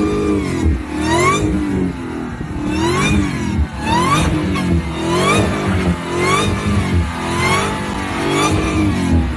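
A car engine revved over and over, its pitch rising sharply and falling back about once a second.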